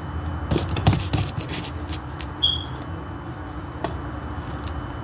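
A knife knocking and scraping against a metal pizza pan while cutting a pizza: a few knocks about a second in, a brief squeak, then another click. A steady low hum runs underneath.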